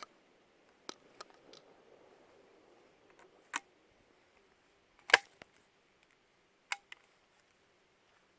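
A single-shot break-action shotgun being handled and reloaded: a series of sharp metallic clicks and clacks. The loudest clack comes about five seconds in, and a few lighter clicks fall before and after it.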